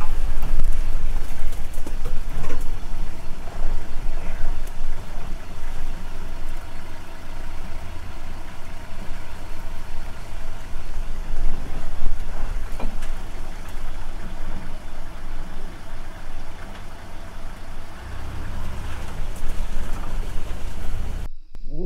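Safari vehicle's engine running, heard from on board as a steady low rumble with a few knocks and rattles. Near the end the rumble cuts off and a short animal growl begins.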